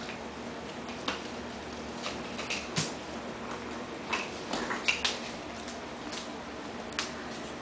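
Scattered light clicks and taps of five-week-old Boston terrier puppies' claws and paws on a wooden floor as they scramble around and over their mother, with a cluster of louder taps about halfway through.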